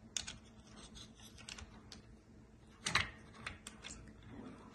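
Scattered plastic clicks and taps as a tripod's quick-release plate is handled and fitted onto the tripod's pan head, with a cluster of louder clicks about three seconds in.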